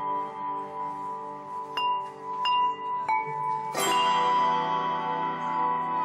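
Handbells ringing: several single bells struck one after another, each tone ringing on, then many bells struck together a little before four seconds in, sounding out as a loud chord.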